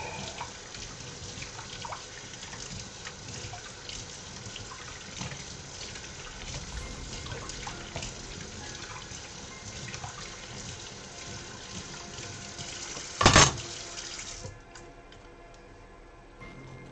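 Kitchen tap running into a stainless-steel sink as cutlery is rinsed under the stream, a steady hiss of water. Near the end there is a single loud clatter, and moments later the tap is shut off and the water stops.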